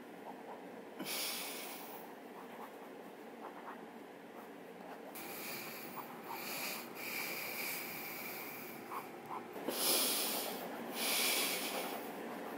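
A person breathing hard through the nose in several long, noisy breaths, the loudest two near the end. Faint pen scratching on paper can be heard between them.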